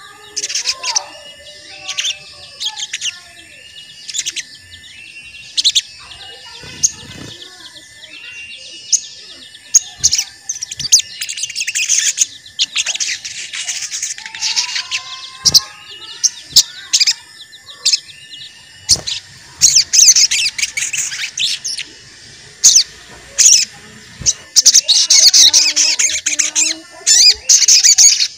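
Sogon songbird chirping 'cuit cuit' as a lure call, short notes repeated about once a second. Louder, denser runs of high chirping come in twice, the longer one through the second half.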